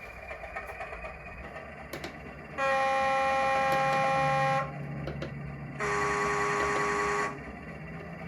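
Two-tone horn of a model Class 205 'Thumper' diesel multiple unit, played by its LokSound sound decoder through the model's small speaker. A higher note sounds for about two seconds, then a lower note for about a second and a half, over the recorded diesel engine idling.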